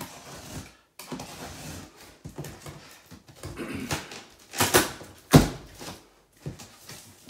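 Box cutter slicing along packing tape on a cardboard box, a scratchy rasping, then the cardboard flaps being pulled open with two louder tearing rips about five seconds in.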